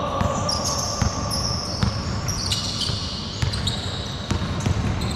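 Basketball bouncing on a hard indoor court in irregular thuds, with sneakers squeaking now and then, echoing in a large gym hall.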